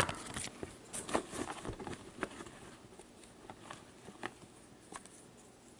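Marker pen writing on a paper score sheet: scattered light scratches and taps, busier in the first two and a half seconds, then sparse.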